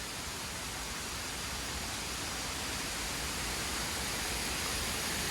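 Steady rush of falling water from a waterfall, slowly growing louder.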